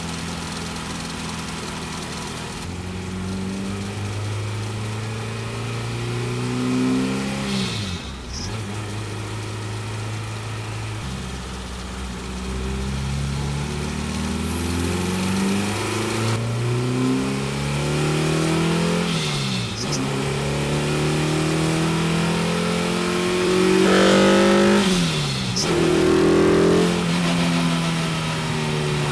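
Tuned Honda Integra DC2's VTEC-equipped B20B four-cylinder engine under way, revving up and falling back sharply at gear changes several times. The engine is loudest about three-quarters of the way through.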